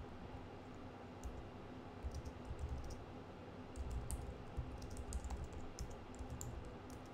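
Faint computer keyboard typing picked up over a video call: scattered keystroke clicks in a few short runs, over a low steady background rumble and hum.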